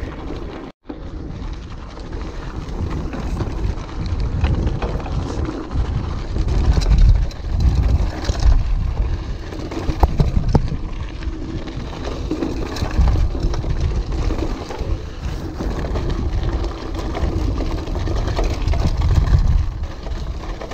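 Orbea Alma mountain bike ridden fast over rocky desert singletrack: tyre noise and the bike rattling over rock, with an uneven, surging low rumble of wind on the camera microphone and a few sharp clacks of rock strikes.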